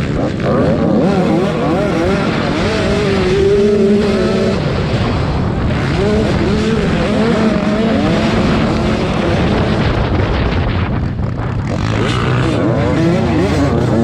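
Several velocross motorcycles racing on a dirt track, their engines revving up and down as they accelerate and back off, the pitches overlapping.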